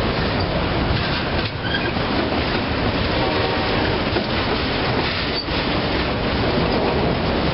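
Autorack freight cars of a passing train rolling by close at hand: a steady rumble and rattle of steel wheels on the rail, with clickety-clack as the trucks cross rail joints and a brief high wheel squeal.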